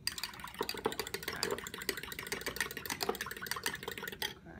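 A fork whisking raw eggs in a glass measuring cup: a fast, steady run of clicks as the fork strikes the glass, stopping abruptly near the end.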